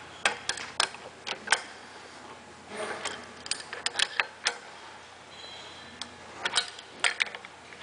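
Sharp metal clicks and clinks of a wrench on a C722 hand tool's hex, coming in three short clusters as the wrench is worked to set a 3/8-16 Plusnut.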